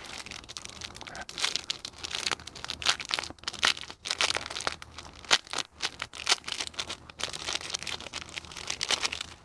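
Thin clear plastic wrapper crinkling and tearing as it is pulled open by hand to free a microfiber applicator cloth, in a run of irregular crackles.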